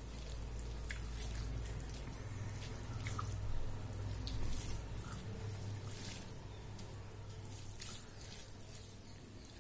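Hand mixing and squishing cooked rice with dal and greens on a steel plate: scattered soft wet squelches and small clicks, over a low steady hum.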